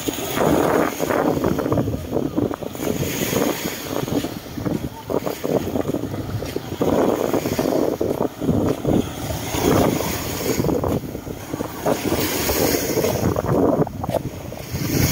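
Wind buffeting the microphone in uneven gusts, over the noise of waves and splashing sea water.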